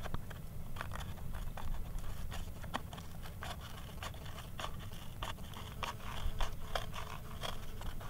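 Pruning shears snipping through cardboard along a curved line: many quick, irregular crunching cuts, over a steady low rumble.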